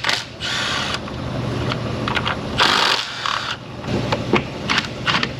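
Ratchet working out 8 mm valve cover bolts in short runs, with sharp metallic clicks and knocks.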